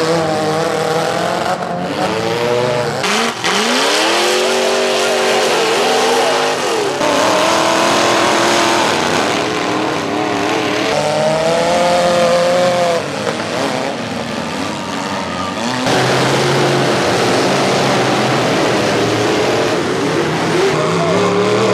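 Several demolition derby cars' engines revving hard over and over, their pitch rising and falling, over a steady haze of engine and tyre noise, with a couple of sharp knocks of cars colliding in the first few seconds.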